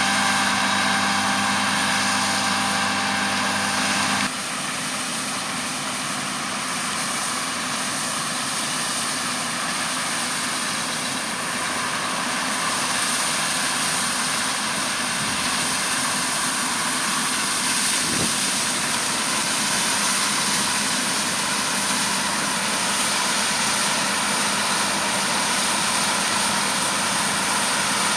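Heavy farm machinery running: a steady engine hum with a whine, which changes suddenly about four seconds in to a steady broad rushing noise over a lower engine hum.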